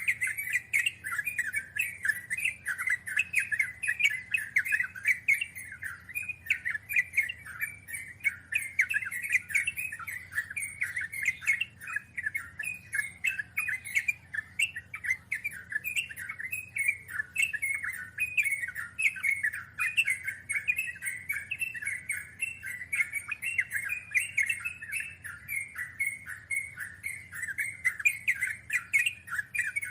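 Yellow-vented bulbul (trucukan) chattering: a fast, unbroken run of short notes, the long rapid song that bird keepers call "ngeropel".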